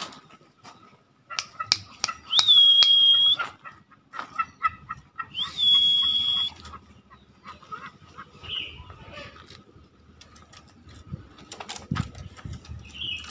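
Green junglefowl giving two shrill calls, each held on one high pitch for about a second after a short upward slide, about three seconds apart. Quick ticking clucks come before and between the calls.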